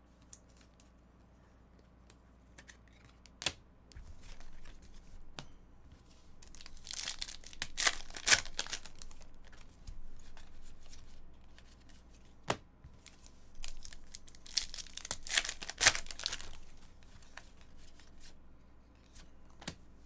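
Foil trading-card pack wrappers being torn and crinkled by hand, in two long rustling bursts about seven and fifteen seconds in, with a few light clicks of cards being handled in between.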